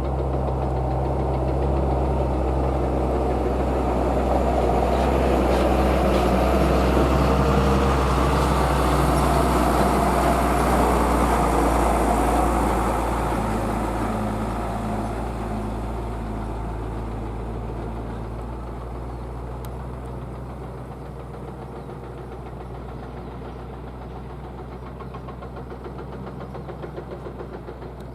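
Excavator's diesel engine running steadily, building to its loudest about a third of the way in, then easing down to a quieter, even run over the second half.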